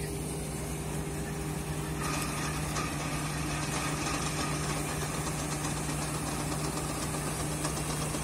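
Diesel engines of a Preet combine harvester and a farm tractor running steadily side by side, a little louder from about two seconds in.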